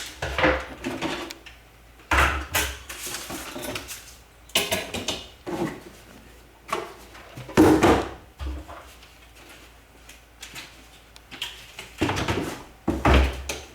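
Plastic pet carrier being handled while its plastic clips are snapped apart: bursts of plastic clattering, clicks and knocks every couple of seconds, the loudest about eight seconds in.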